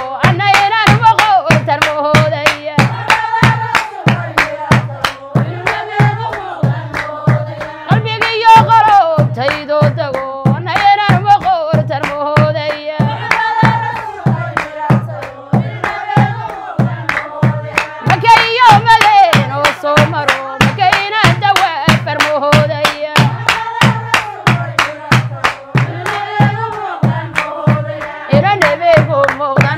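Women singing a Somali devotional song praising the Prophet (nabi ammaan), kept in time by steady hand clapping about twice a second.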